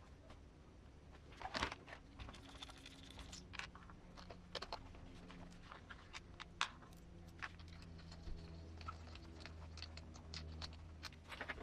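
Faint, scattered clicks and taps of small parts being handled as wheels are fitted to an RC crawler chassis, over a low steady hum.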